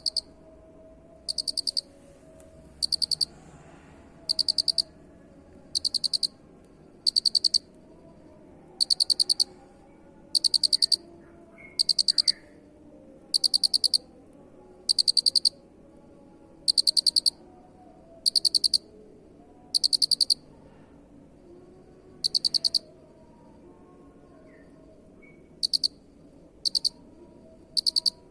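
Cricket chirping: short high-pitched chirps, each a quick run of pulses, repeating about every second and a half, with a pause of a few seconds near the end.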